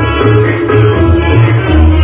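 Loud music with a heavy bass line of strong repeated low notes, played on a car sound wall of JBL Vulcano 18-inch subwoofers and Triton 10-inch mid-bass speakers.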